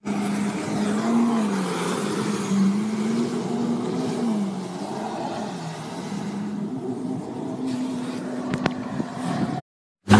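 Yamaha WaveRunner jet ski engine running at speed over the water, its pitch rising and falling several times as the throttle changes, with a rush of water and wind noise. The sound breaks off abruptly just before the end.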